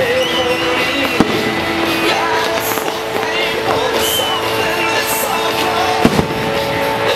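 Music playing with aerial firework shells bursting over it: two sharp bangs, one about a second in and one near the end.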